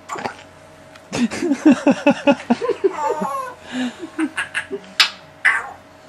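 Laughter: a run of quick, pitched 'ha' pulses lasting about two seconds, followed by shorter calls and two sharp high cries near the end.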